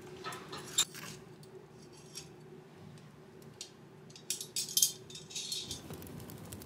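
Light metallic clinks and rattles from a metal wood-burning stove being handled as it is readied for lighting: one sharp clink about a second in and a quick cluster of clinks past the middle, over a low steady hum.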